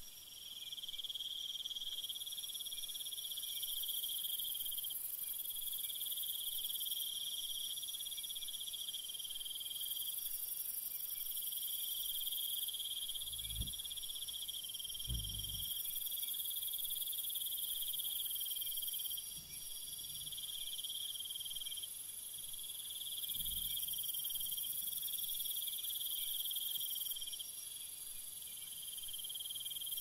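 Dense, high-pitched chorus of insects chirring steadily, in two shrill layers that swell and drop back every few seconds. A few faint low thuds come in the middle.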